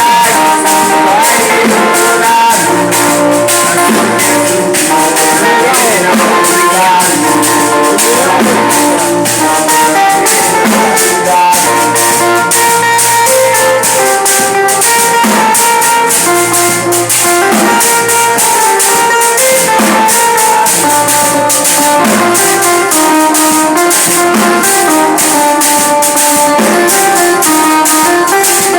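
Instrumental music: plucked guitar over a steady beat of hand percussion such as tambourine.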